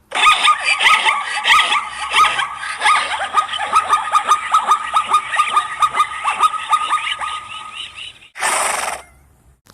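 Zebra calling: a long run of rapid, barking yelps, about three to four a second, followed near the end by a short breathy blast.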